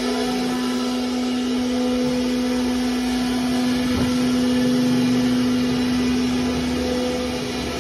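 CNC router spindle motor running at speed, a steady high-pitched hum that holds one pitch throughout, with one short knock about four seconds in.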